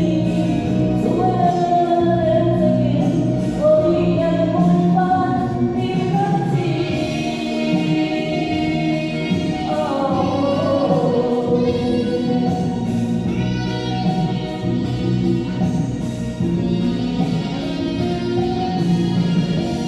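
Karaoke-style performance of a Chinese pop ballad: a voice sings a gliding melody with KTV echo effect over a full, steady backing track.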